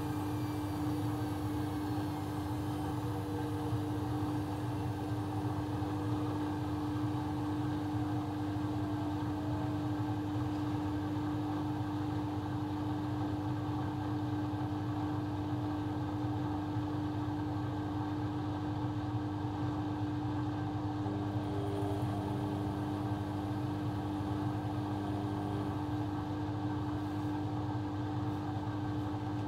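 Laundry machine motor running steadily, with a constant hum and a steady mid-pitched tone.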